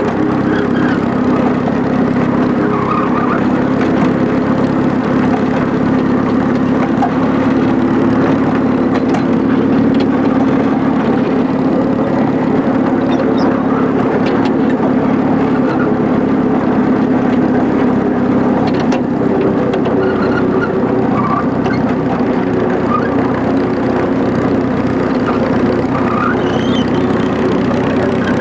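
Engine of a miniature railway locomotive running steadily as it hauls the train along the track, its note rising a little in the last third.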